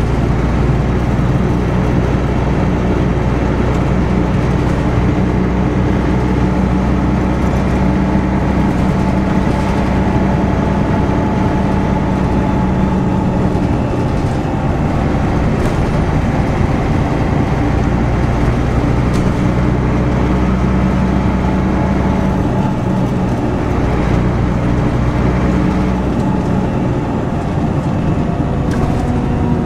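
Rear-mounted diesel engine of a Volvo B10BLE single-deck bus heard from inside the passenger saloon while the bus is under way. The engine note eases off about halfway through and picks up again a few seconds later, with light interior rattles.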